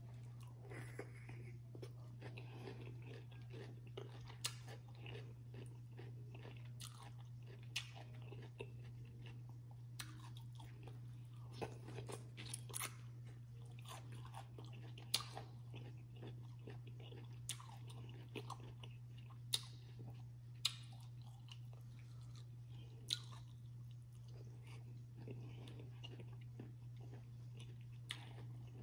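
A person chewing and biting rotisserie chicken, with wet mouth clicks and crunches scattered irregularly through, a few of them sharp and loud. A steady low hum runs underneath.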